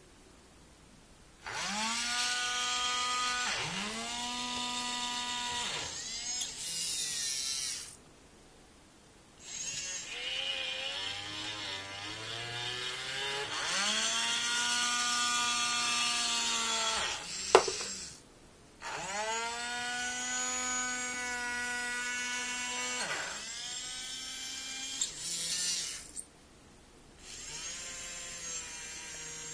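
Small geared DC motors of a hobby robot arm whining in runs of a few seconds. Each run starts with a rising pitch as a motor spins up, with short pauses between moves. There is one sharp click partway through.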